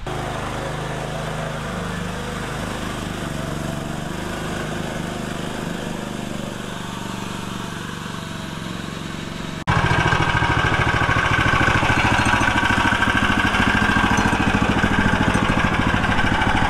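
Single-cylinder 420cc Predator engine of a homemade 4x4 mini dump truck running as the machine drives, its pitch shifting with the load. About ten seconds in it turns much louder and steadier, heard close up at the engine enclosure.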